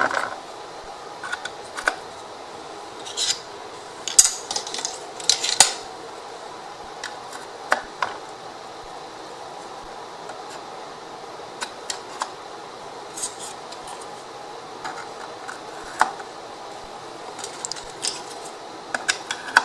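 Scattered light clicks and taps of thin MDF wood pieces being handled, set down and pushed into slots, over a steady faint hiss.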